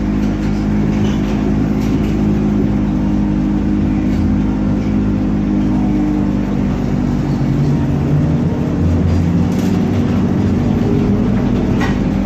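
ZiU-682 trolleybus running, a steady low electric hum of several tones that shifts in pitch about eight seconds in, with a faint click near the end.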